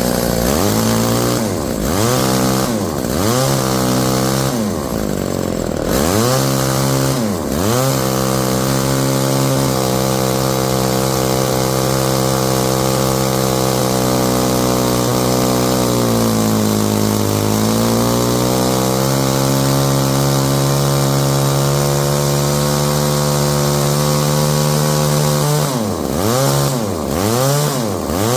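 Chainsaw winch's small two-stroke engine running at high speed and being blipped. Its speed drops and climbs back sharply several times at the start and near the end, with a long steady high-speed run between and one brief sag about halfway. This is a test run after the carburetor's high-low mixture screw was adjusted.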